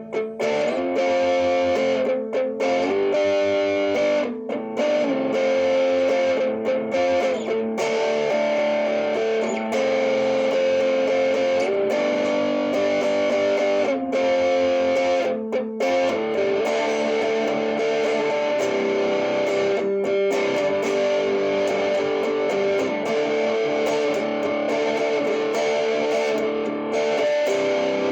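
Electric guitar strummed through a homemade one-knob EHX-style fuzz pedal, set at about a quarter, into an amp, giving fairly healthy distortion. Sustained chords of a D, F, G progression that flips to D, C add9, G.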